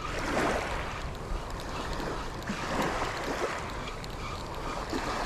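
Small waves washing in on the shore, with two louder surges about two seconds apart over a steady rush of water and wind.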